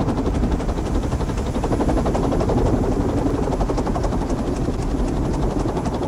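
Small two-bladed wind turbine rotor spinning fast in a shrouded ring of vanes, a steady rapid whirring chop of the blades in rushing air.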